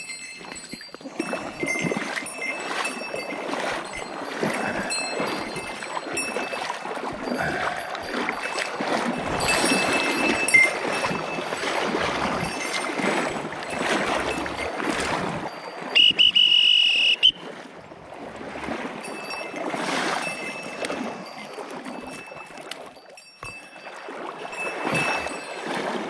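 Steps wading through shallow river water: irregular splashing and swishing with rustling, going on without a break. About two-thirds of the way through, a loud high steady tone sounds for about a second.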